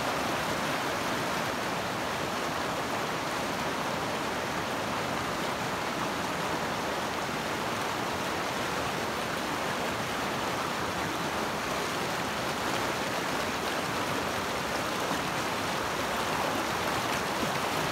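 Mountain stream rushing steadily, an even unbroken sound of flowing water.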